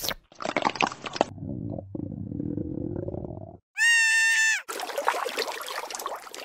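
Dubbed stop-motion sound effects for a toy fish moving in mud: short wet crackles, then a low gurgling rumble, then a loud, flat, high cartoon squeak lasting under a second, about four seconds in. Crackly sloshing of mud follows as the fish slides away.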